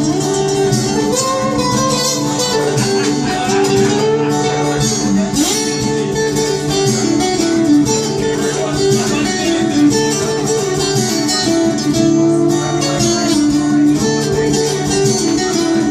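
Instrumental passage of a live folk-rock song, led by strummed and plucked guitar, with no singing.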